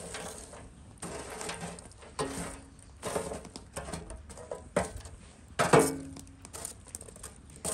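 Metal tongs raking and stirring charcoal embers in a steel brazier: the charcoal pieces clink, crunch and tumble in irregular clatters. A few harder knocks ring briefly, the loudest a little before six seconds in.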